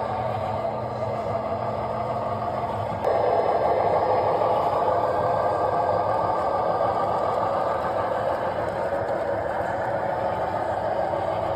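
Radio-controlled truck's motor and gears running steadily, getting louder about three seconds in.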